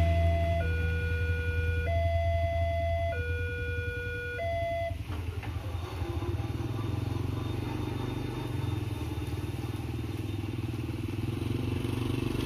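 Railway level-crossing warning alarm sounding a two-tone electronic signal that swaps between a lower and a higher tone about every second and a quarter, then cuts off about five seconds in as the crossing reopens after the train. Waiting motorcycle and car engines idle underneath.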